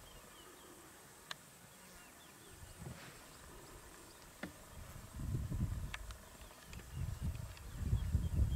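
Quiet outdoor ambience with faint short bird chirps and a few sharp clicks, then irregular low rumbling from about halfway through.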